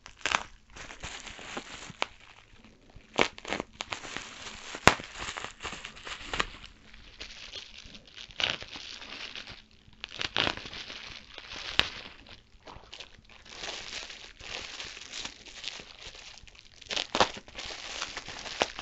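Plastic bubble wrap being unwrapped and crumpled by hand: irregular crinkling and crackling, with two sharp snaps about 5 and 12 seconds in.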